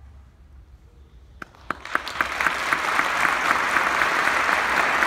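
Audience applause. After a quiet second or so, a few scattered claps come about a second and a half in, then quickly swell into full, steady clapping.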